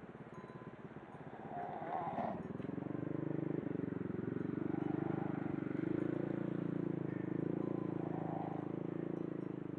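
Snoring: a coarse, rattling breath sound that grows louder about two seconds in and keeps on.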